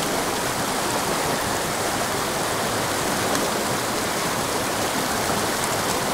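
Small pocket-water mountain creek rushing steadily, an even wash of running water close by.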